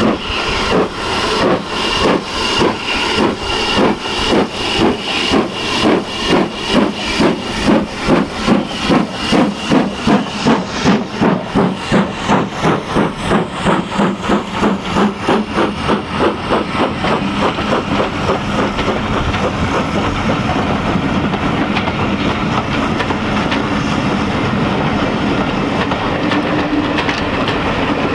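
BR Standard Class 4MT 2-6-4 tank engine working hard, its steam exhaust beats loud and getting quicker as it passes. The beats then give way to the steady rolling of the coaches going by.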